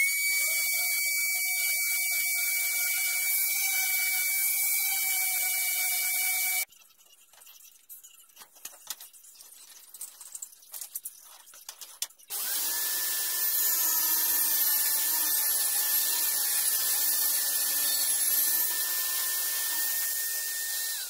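Electric random orbit sander running with a steady high whine for about six seconds, then stopping. A few seconds of light knocks and handling follow. A table saw then starts about twelve seconds in and runs steadily while ripping a thin strip from a board, and its pitch starts to fall as it is switched off at the end.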